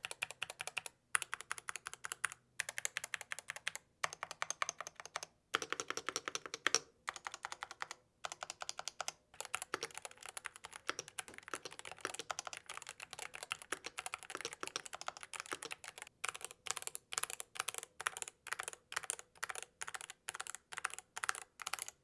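Typing sound test on an Epomaker GK75 mechanical keyboard, which has optical switches, a thick metal plate and a foam- and silicone-dampened case. Fast runs of keystrokes come with brief pauses between them, and the typing turns more continuous after the first few seconds.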